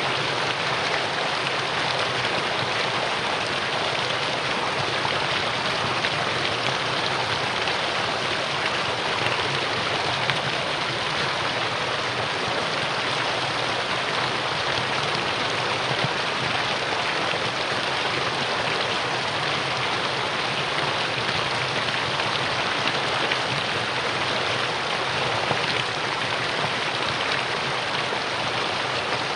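Mountain stream rushing over rocks, a steady, even water noise.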